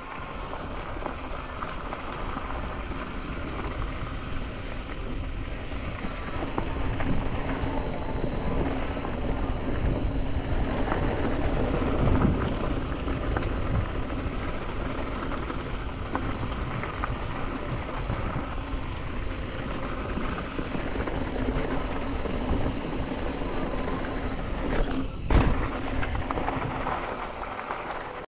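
Yeti SB165 mountain bike descending a rocky dirt trail: steady tyre rumble over gravel, with many small knocks from bumps and one hard thump near the end, under wind buffeting the camera microphone.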